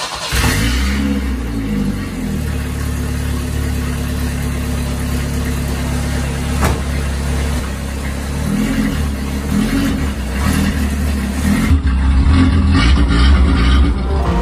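Chevy S10 2.2-litre four-cylinder engine running through a straight-pipe exhaust, loud and unmuffled, as it drives the car under its own power. The note wavers with the throttle partway through and grows louder near the end.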